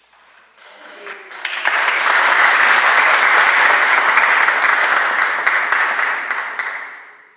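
Audience applauding: the clapping builds about a second in, holds steady, and fades away near the end.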